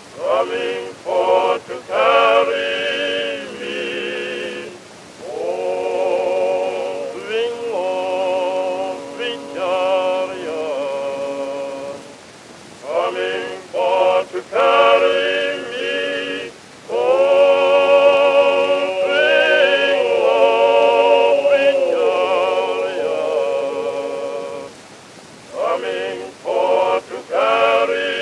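Singing as background music: a slow song in long held phrases with vibrato, broken by short pauses, with little or no instrumental accompaniment.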